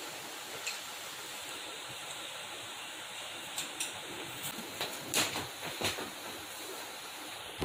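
Water buffalo being milked by hand: a quick run of short squirts of milk from the teats about halfway through, over a steady background hiss.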